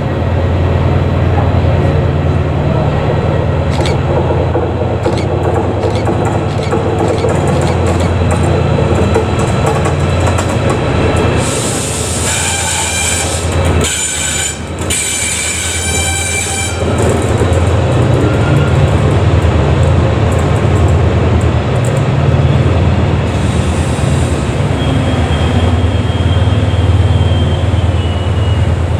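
TransPennine Express Class 68 diesel locomotive, with its Caterpillar V16 engine, running past with a steady, loud low drone. From about twelve to seventeen seconds in, a high squeal from the train takes over while the engine sound dips, then the drone comes back.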